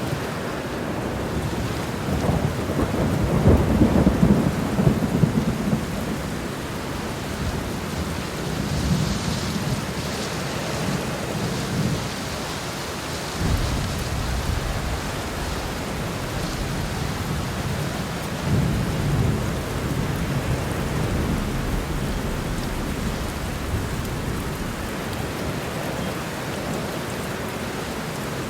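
Heavy rain falling steadily, with thunder rumbling low in the background, swelling several times and strongest a few seconds in.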